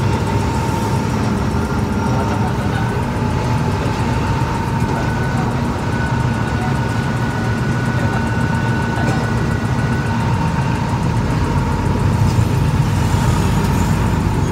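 Bus engine and cab noise heard from inside the cab as the bus crawls through traffic, a steady low rumble. A thin steady high-pitched tone runs through it, joined by a second, higher tone for several seconds in the middle.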